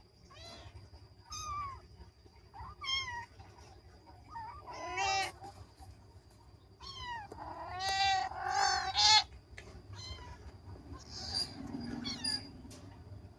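Kitten meowing over and over in short, high-pitched calls, about a dozen of them, loudest in a run near the middle. A faint steady high whine sits underneath.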